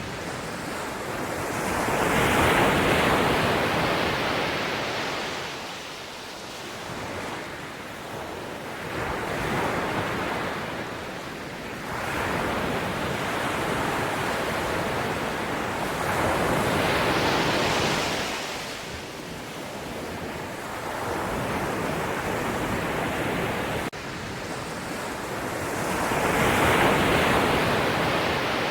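Ocean waves breaking and washing ashore, a loud rushing surge every several seconds that swells and fades away.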